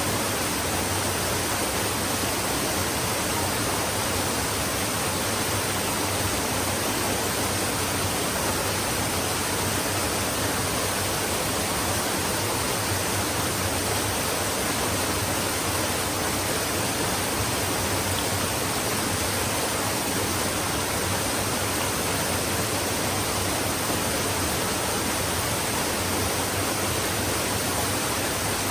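Stream flowing steadily: an even, unchanging rush of running water.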